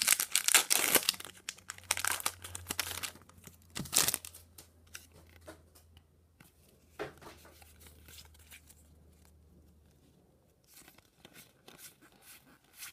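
Pokémon TCG booster pack's foil wrapper torn open and crinkled over the first few seconds, with a last loud crackle about four seconds in. Then quieter handling, and near the end a run of soft ticks as the trading cards are slid one behind another.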